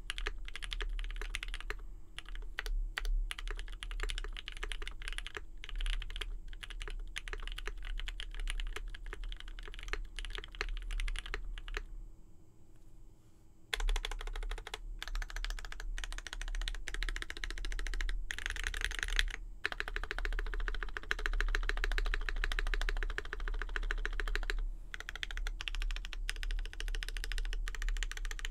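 Typing on a Mode65 mechanical keyboard with lubed Marshmallow switches, a POM plate and GMK Darling keycaps: a continuous run of key clacks, with a short pause a little before halfway.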